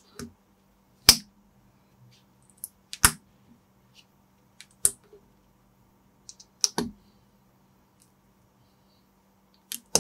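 Plastic building bricks being handled and pressed together, giving sharp separate clicks every second or two, the loudest just after a second in and near three seconds, over a faint steady low hum.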